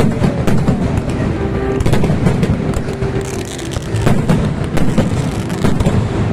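Aerial fireworks bursting, many sharp cracks in quick succession over a steady low rumble.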